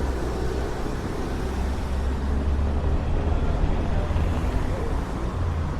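Wind rumbling on the Insta360 X4 camera's microphones through their wind protection: a steady, fluctuating low rumble with a soft hiss above it.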